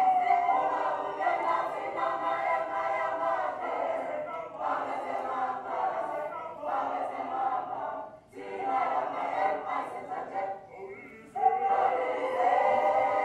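A group of voices singing together in chorus, in phrases with short breaks and a louder entry near the end, heard as a video's soundtrack played over a hall's speakers.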